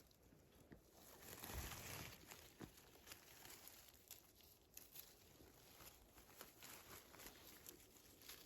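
Faint rustling of low berry shrubs with scattered small ticks and crackles as berries are picked, with a louder rustle a second or two in.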